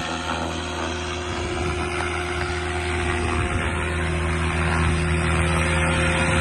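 Electric 6S SAB Goblin 570 RC helicopter's rotor and motor humming at a steady pitch, growing louder as it comes in low and settles onto the grass.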